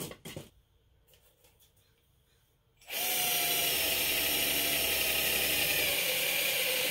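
Cordless drill boring a hole in the trike's steel frame tube, so that rubber grommets can be fitted. It starts about three seconds in and runs steadily with a whine that sags slightly in pitch soon after it starts.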